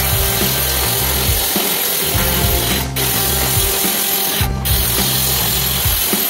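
Small handheld electric circular saw running and ripping lengthwise through a plywood sheet: a steady, loud high whine with cutting hiss that drops out briefly twice, about three and four and a half seconds in. Background music with a low beat plays underneath.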